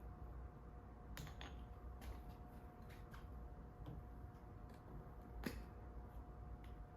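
Faint, scattered clicks and taps of small metal parts and hand tools being handled, about seven in all, the sharpest about five and a half seconds in, over a steady low hum.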